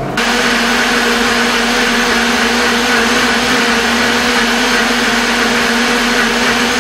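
Riviera & Bar Blender Pro Le Boss high-power countertop blender, cutting in abruptly and running at a steady high speed in its soup mode, puréeing butternut squash, chestnuts and stock in its jar. The motor makes a loud, even hum with a steady tone in it.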